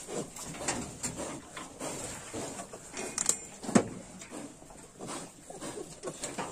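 Yorkshire sow and piglets grunting irregularly with short snuffling sounds while the piglets nurse, with one louder sound a little past halfway.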